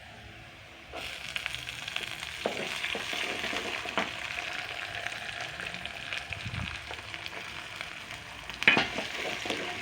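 Diced green capsicum sizzling in hot oil with softened onions, starting about a second in, with a few sharp knocks of the stirring spoon against the pan.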